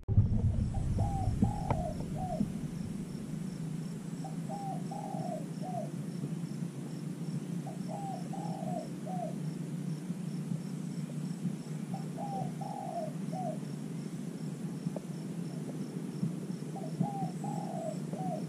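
Spotted dove cooing: five short three-part coo phrases, about one every four seconds. Underneath are a steady low hum and a faint, regular high ticking.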